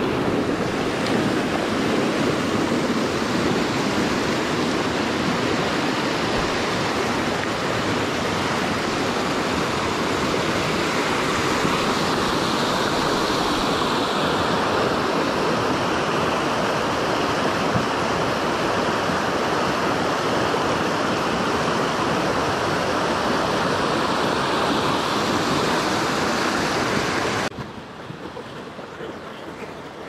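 Stream water rushing, a steady loud rush that drops sharply in level near the end.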